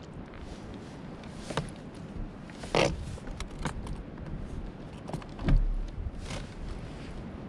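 Handling noises as a fish wrapped in a plastic bag is stowed in a plastic fishing kayak: scattered clicks and bag rustles, a louder rustle about three seconds in and a low thump about five and a half seconds in.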